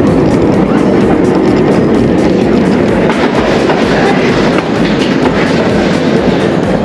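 Roller coaster train rattling and clattering along its track, heard from a seat on board: a loud, steady rumble.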